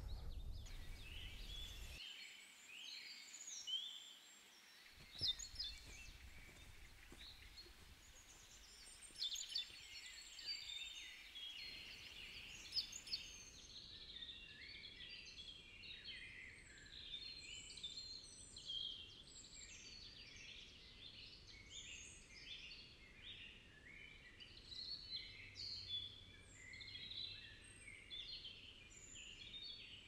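Several songbirds chirping and singing in a morning chorus, many short overlapping calls, growing busier through the second half. The faint low background rumble beneath them cuts out and back in abruptly a few times.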